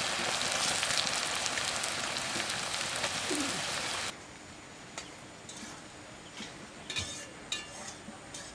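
Sliced onions sizzling loudly in hot mustard oil in an aluminium kadai, cutting off abruptly about four seconds in. After that the background is quiet, with a few short clicks and chirps.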